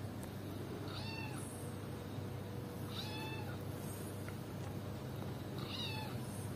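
Three short, high-pitched cat meows, a couple of seconds apart, over a steady low hum.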